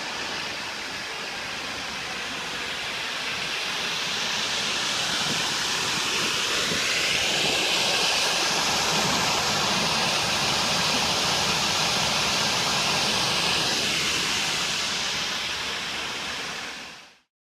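Commercial high-pressure washer jet spraying water at close range against a fabric typhoon screen. It is a steady hiss of spray that grows louder over the first few seconds and stops abruptly near the end.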